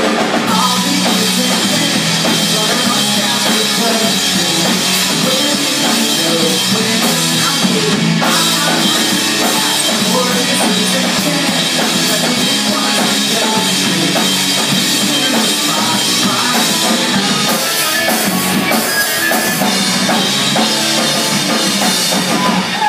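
Live rock band playing loud: electric guitars, bass guitar and a drum kit, with the loudness dropping briefly near the end.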